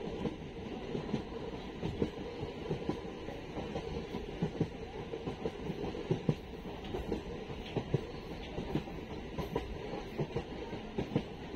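Moving ICF-built MEMU electric passenger train heard from inside the carriage. The wheels clatter over the rail joints with many irregular knocks above a steady running rumble.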